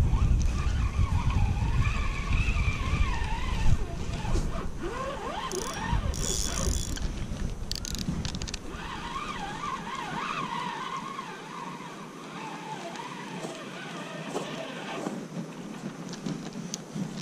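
Spinning reel being cranked, its gears whirring in a wavering whine that rises and falls with the speed of the handle, over wind buffeting the microphone that drops away about halfway through. A short high hiss with a few clicks comes in the middle.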